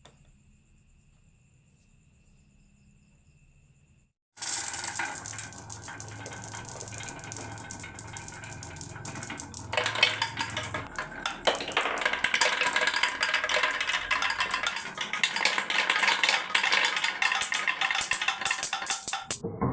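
A dense clatter of many marbles rolling and knocking down a marble run's tracks. It starts suddenly after a few seconds of near silence, grows louder about ten seconds in, and stops abruptly near the end.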